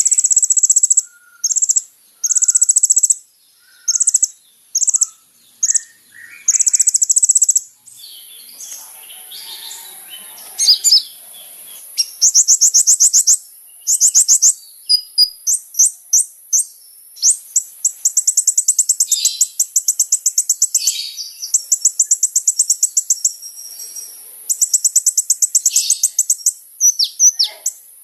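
Kolibri ninja sunbird singing vigorously: repeated bursts of very high, fast trills, some under a second and some several seconds long, over a constant faint high hiss.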